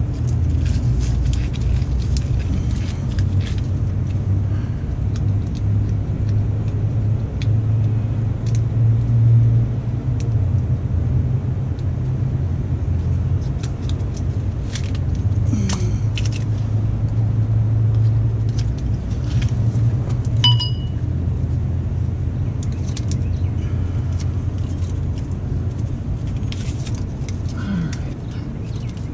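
A steady low rumble, like a machine or engine running nearby, with faint clicks and rustles of tape being worked around a cable.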